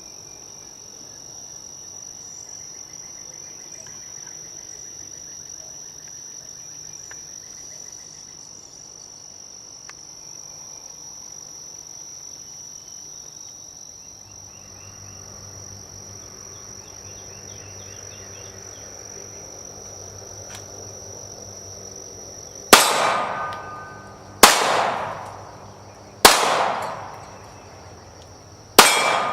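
Insects trilling steadily in the background, then four gunshots about two seconds apart near the end, each followed by a fading echo.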